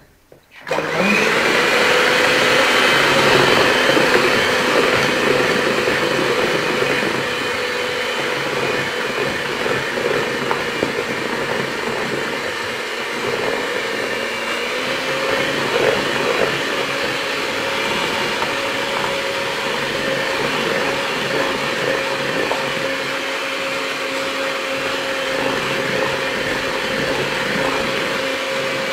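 Handheld electric mixer spinning up about a second in, then running steadily with a motor whine as its beaters whisk a runny egg, sugar and oil batter.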